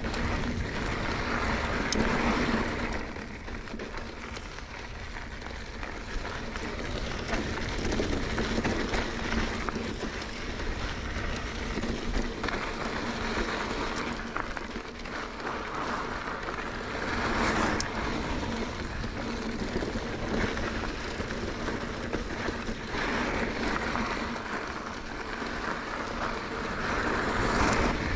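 Mountain bike rolling fast downhill on rocky dirt singletrack: a steady rush of tyre and trail noise mixed with wind over the camera microphone, swelling about two seconds in, midway and again near the end.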